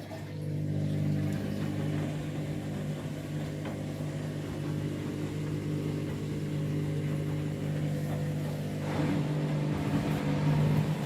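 Washing machine drum motor running steadily at constant speed during a short intermediate spin, a steady hum with a small shift in tone about nine seconds in.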